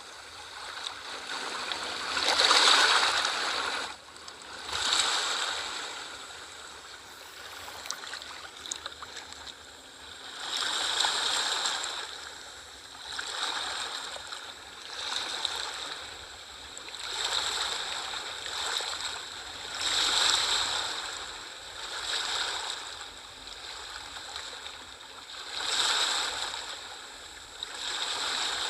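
Small sea waves washing in and drawing back, a hissing rush that swells and fades every two to three seconds.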